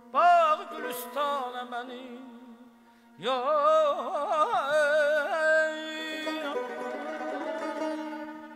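Male mugham singer's voice in two long ornamented phrases full of rapid trills. The first fades out about two and a half seconds in, and the second comes in strongly about three seconds in. A steady low held note sounds underneath.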